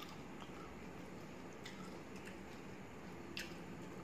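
Faint eating sounds: close-up chewing and mouth clicks, and fingers mixing rice on a metal plate, with scattered small clicks, the sharpest about three and a half seconds in.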